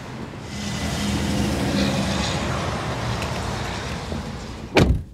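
Traffic noise from outside, then near the end the passenger door of a 2015 Mercedes-Benz GLA45 AMG is pulled shut with one solid thud, and the outside noise drops away at once.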